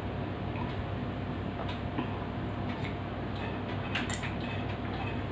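A person drinking water: faint swallows and small clicks, the clearest about four seconds in, over a steady low room hum.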